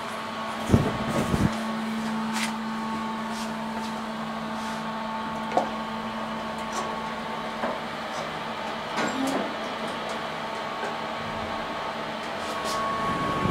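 Inside a small SMW elevator cab: a few knocks as the door shuts, then a steady electrical hum with scattered light clicks and taps, the hum stopping about two-thirds of the way through.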